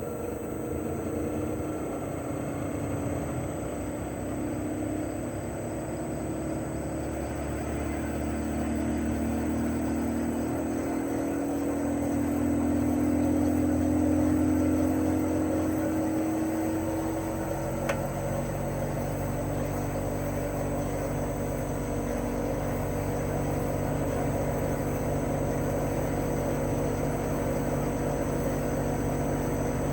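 Chofu AE-2844PX mini-split outdoor unit running in cooling mode: its inverter-driven GMCC single-rotary compressor hums under the whir of the propeller fan. About 17 seconds in, the hum tones shift and a deeper hum joins in as the compressor changes speed.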